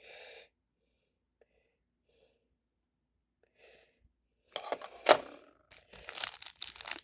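Plastic packaging crinkling and tearing, starting about four and a half seconds in, with a sharp snap about five seconds in.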